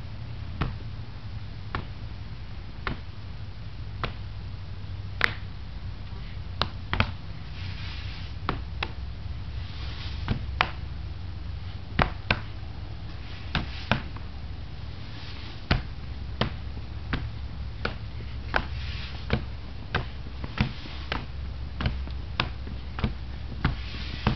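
Hand and forearm strikes on a wooden training post: sharp knocks at irregular intervals, about one a second, over a steady low rumble.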